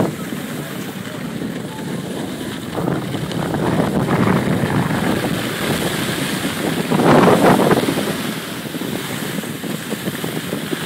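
Wind rushing over the microphone: a noisy hiss that swells and fades several times and is loudest about seven seconds in.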